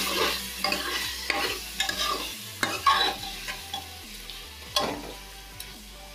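A metal spoon stirring and scraping chopped tomatoes and mutton around a metal pot of hot oil, over a light sizzle of frying. The strokes are irregular and loudest in the first three seconds, with one sharp scrape near five seconds, then ease off.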